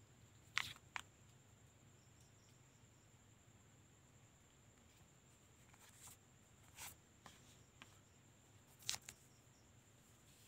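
Faint handling noises of a phone's retail box and accessories: a few short clicks and taps as a plastic wall charger and cardboard packaging are set down and moved, the sharpest about half a second in and near the end, over near-silent room tone.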